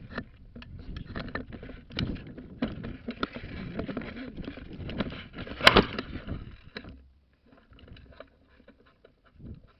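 Rustling and handling noise from a player moving, full of small knocks, with one loud sharp crack about six seconds in; it turns much quieter about seven seconds in.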